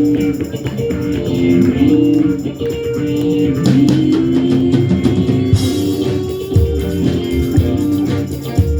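Live rock band playing: electric guitar holding and bending notes over bass and drum kit, with a couple of cymbal crashes in the middle.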